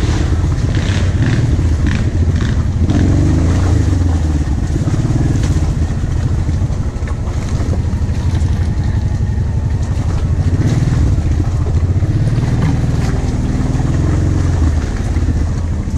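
ATV engine running as the quad is driven along a muddy, rutted trail, its note rising and falling with the throttle.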